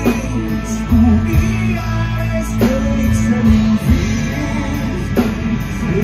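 Live band music through a PA: drum kit, electric bass guitar and a male singer's vocal.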